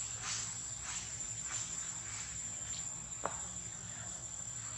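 Outdoor insects keeping up a steady high-pitched drone, with soft rustling swishes about every half second and a single sharp click about three seconds in.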